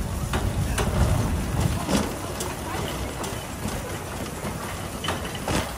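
Wire shopping trolley rolling over a concrete warehouse floor: a low rumble from the wheels, heaviest in the first two seconds, with irregular sharp rattles and clicks from the wire basket.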